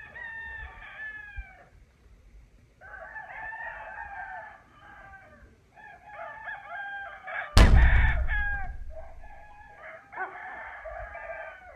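Rooster crowing amid other chicken calls, several calls in a row and overlapping. A sudden loud hit about seven and a half seconds in dies away over a couple of seconds.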